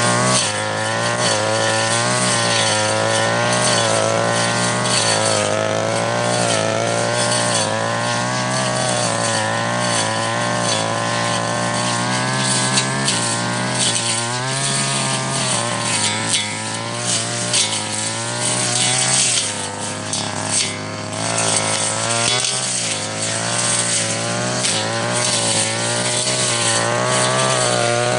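Petrol brush cutter engine running at high speed while cutting weeds, its pitch wavering and dipping briefly several times as the blade takes on growth, most clearly a little past the middle.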